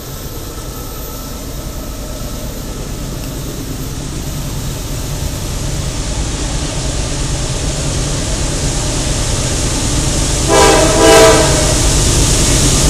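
CSX GE AC4400CW diesel-electric locomotives hauling a loaded coal train upgrade, their engines rumbling steadily and growing louder as they approach. The locomotive horn sounds two short blasts about ten seconds in.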